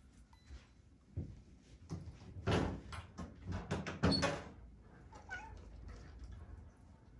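A cat meowing a few short times, mixed with a few knocks, the loudest calls about two and a half and four seconds in.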